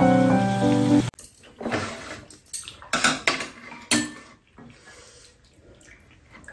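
Background music cuts off about a second in. Then metal spoons clink and scrape against bowls and a frying pan in a string of separate sharp clicks while people eat.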